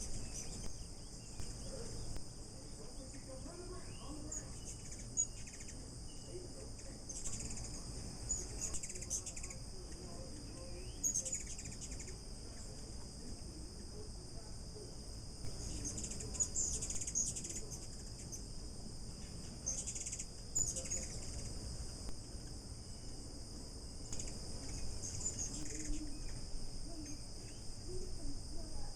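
A steady, high-pitched insect chorus, with short high chirps breaking in every few seconds.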